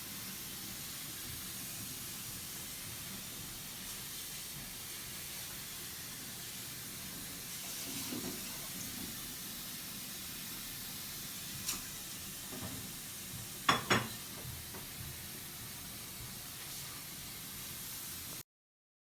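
A steady faint hiss with a few brief clicks: one about halfway through and a louder close pair a couple of seconds later. It cuts off abruptly to silence near the end.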